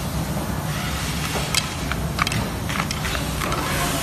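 Several light clicks and knocks of a scooter controller's wires and plastic connectors being handled against the metal stem as the controller is pulled out, over a steady low background hum.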